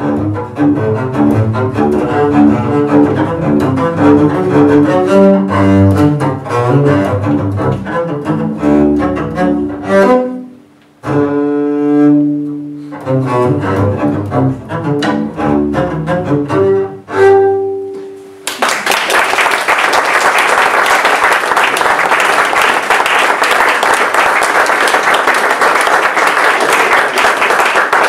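Three-string double bass, bowed, playing a waltz, with a brief break and a long held note near the middle; the music ends about two-thirds of the way through. Then a room of listeners applauds.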